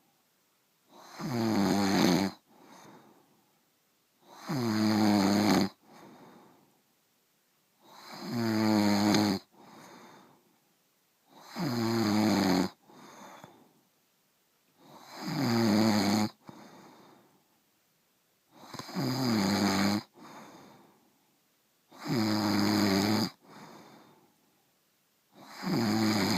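Loud, regular snoring: a long pitched snore about every three and a half seconds, each followed by a fainter breath.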